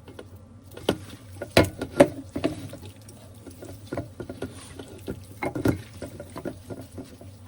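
Hands squishing and rubbing seasoned raw chicken pieces in a bowl: irregular wet squelches and clicks, with louder bunches about one and a half seconds in and again about five and a half seconds in.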